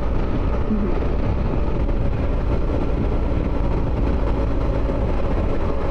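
Motorcycle riding at steady cruising speed: constant wind rush and low buffeting on the rider's microphone, with the engine droning evenly underneath.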